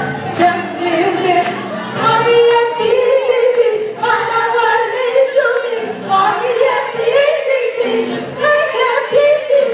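Women singing into microphones through a sound system, holding long notes with vibrato.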